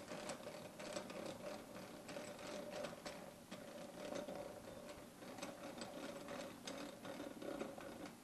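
Three-jaw lathe chuck being wound closed with its chuck key: the scroll turning and the freshly reinstalled jaws sliding in together, a faint, irregular run of small metal clicks and scrapes over a steady hum.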